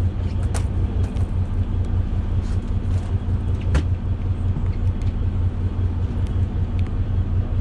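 Fishing boat's engine running steadily, a low hum, with a few light clicks, the sharpest about four seconds in.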